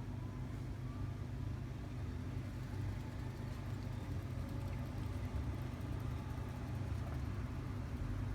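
Steady low engine rumble of a motor vehicle, with no change in pace.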